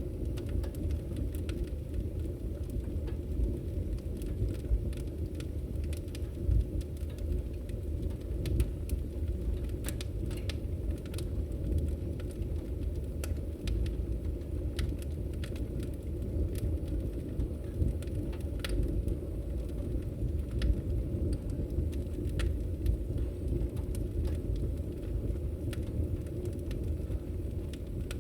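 Fire burning in a fireplace: a steady low rumble of flames with irregular sharp crackles and pops, several per second at times.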